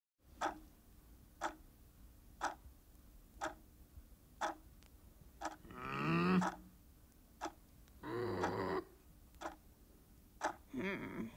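A clock ticking about once a second in an animated film's soundtrack. Three short wordless vocal sounds from the characters come in between, the first, about six seconds in, a growl-like sound.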